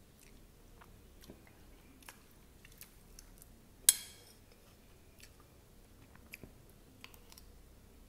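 Soft close-up chewing and mouth clicks while eating sev-topped poha, then one sharp, briefly ringing clink about four seconds in as a steel spoon strikes the ceramic plate while scooping.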